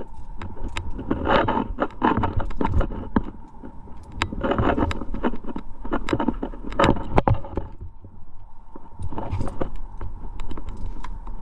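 Climbing gear on a harness clinking and rattling (carabiners, quickdraws and cams knocking together) amid scuffing of hands and shoes on rock, over a steady low wind rumble on the microphone.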